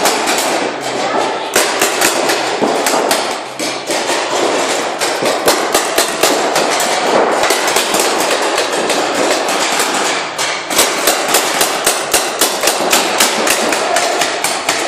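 Paintball markers firing in rapid, overlapping volleys, several sharp shots a second, with a brief lull a little past ten seconds in.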